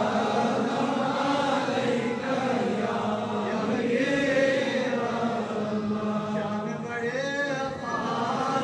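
An imam chanting a Quran recitation to a congregation standing in prayer, in long, drawn-out phrases that slowly rise and fall in pitch.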